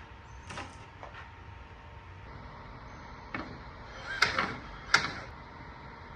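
A few scattered light knocks and clunks of wooden furniture parts being handled, with two sharper knocks about four and five seconds in.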